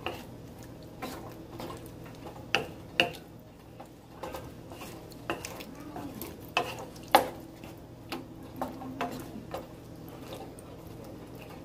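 Spoon stirring a chickpea and coconut-milk mixture in a pan, with irregular clinks and knocks against the pan; the sharpest knocks come about two and a half, three and seven seconds in.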